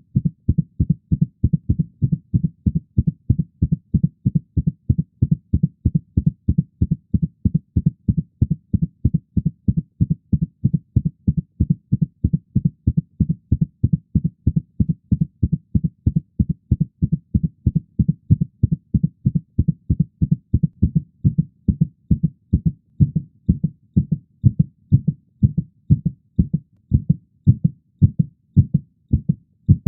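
Heartbeat sound effect: a fast, regular series of low thumping beats that gradually slows toward the end.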